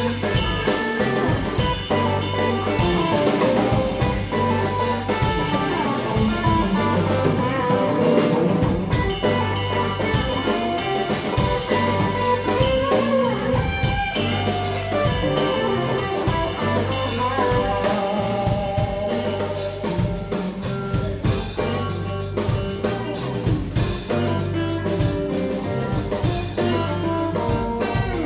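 Live blues band playing an instrumental stretch: electric guitar over drum kit and bass, with no singing.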